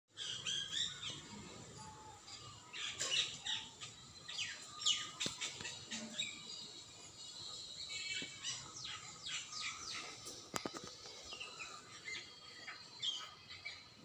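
Several songbirds chirping and singing together in a busy chorus of quick, falling chirps and short trills.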